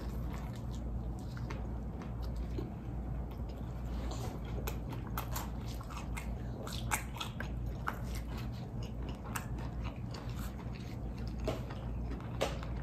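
Close-up biting and chewing of a Popeyes fried chicken sandwich, many small crunching clicks and crackles from the mouth, more frequent in the second half.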